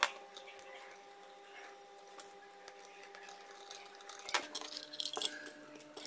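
Small plastic parts of a headphone earcup being handled and fitted together: a sharp click at the start, then a cluster of light clicks and rustling about four seconds in.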